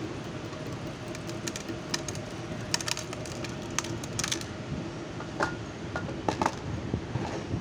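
Motorized resistor cut-and-bend machine running with a steady motor hum, its blades cutting and forming the leads of taped axial resistors with irregular clusters of sharp clicks as the cut resistors drop into a plastic bin.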